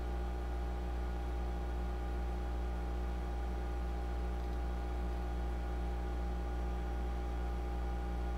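Steady electrical mains hum with its evenly spaced overtones and a faint hiss, unchanging throughout.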